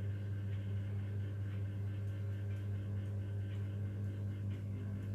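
A steady low electrical-sounding hum with several evenly spaced overtones, and faint short high ticks scattered over it.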